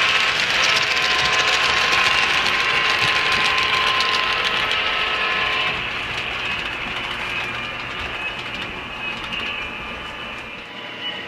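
HO scale model passenger cars rolling along the track, their wheels clicking over the rail joints, mixed with steady tones from the lead Atlas Dash 8-32BWH's DCC sound decoder. It gets quieter about six seconds in and keeps fading as the train moves away.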